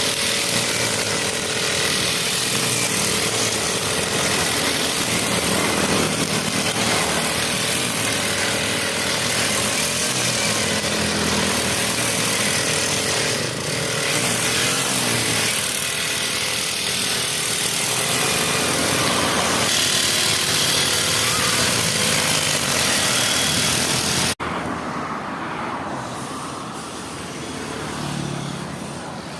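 Brush cutter (grass-cutting machine) engine running steadily. About 24 seconds in, the sound breaks off abruptly and is replaced by a quieter engine sound.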